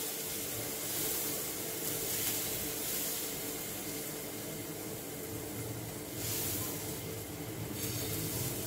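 Dosa batter sizzling with a steady hiss on a hot nonstick tawa as a steel spoon spreads it round. The hiss swells a little about six seconds in.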